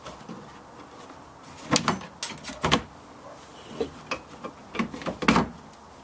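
Plastic rear bumper hitch cover being pressed up into place by hand: a handful of irregular sharp plastic clicks and knocks as its tabs and retaining clips seat, the loudest about five seconds in.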